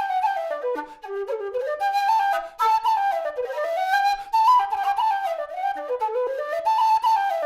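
Nightingale low whistle from Alexander Karavaev's workshop playing a quick, ornamented solo melody. Short breaks fall between phrases.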